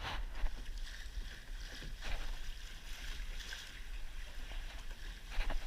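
Wind buffeting the action camera's microphone, with water sloshing against a kayak hull and a few louder surges.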